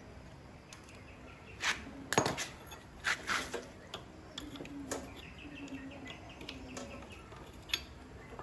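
Metal tools and parts clinking and knocking as they are handled during motorbike repair work. The sharpest clanks come about two seconds in and around three seconds in, with a few lighter knocks after.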